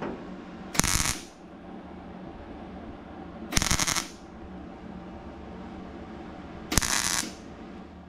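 MIG welder striking three short tack welds on the steel door skin of a 1948 Chevrolet, each a burst of arc about half a second long, a few seconds apart, over a steady low hum.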